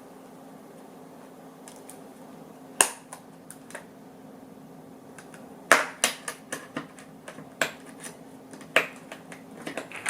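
Air purifier fan running with a steady low hum, under a series of sharp clicks and taps: one about three seconds in, then a quick run of them between six and nine seconds in.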